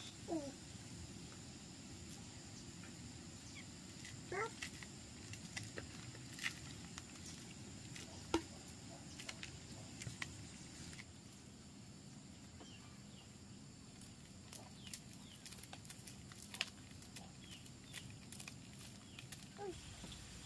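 Dried corn being shelled by hand: kernels rubbed off the cobs, clicking and pattering into a plastic basket. A few short high calls, each a quick pitch sweep, come through now and then.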